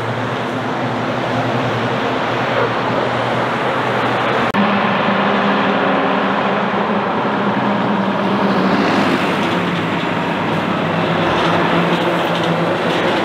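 Heavy diesel trucks passing on a hill road: an Iveco truck and trailer pulling away, then, after an abrupt break about four and a half seconds in, a Volvo FM truck and trailer approaching and passing close, with a steady low engine note over tyre and road noise.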